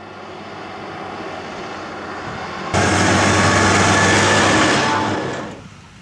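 John Deere 6170R tractor's diesel engine running as it drives along a road, slowly growing louder as it approaches. About three seconds in, the sound jumps suddenly much louder and close, then drops away sharply near the end.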